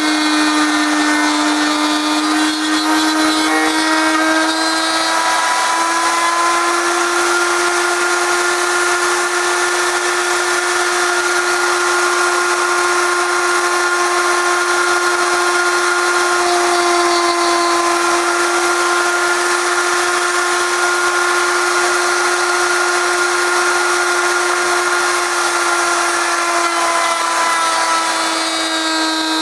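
Electric router running in a router table, a steady high whine while cutting wood, its pitch sagging slightly at times. The cutter is one the owner says is not sharp.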